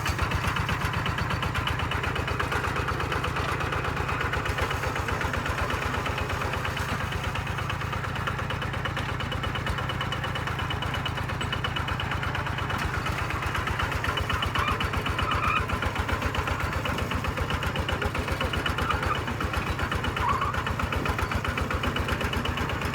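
Kubota RT-series single-cylinder diesel engine on a two-wheel walking tractor running steadily, with an even, rapid beat of firing strokes.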